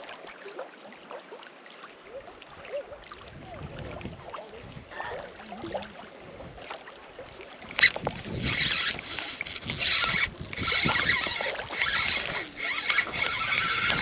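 Faint knocks and water sounds in a canoe, then a sharp click about eight seconds in and a fishing reel whirring loudly in spells with short pauses, as a hooked smallmouth bass is fought.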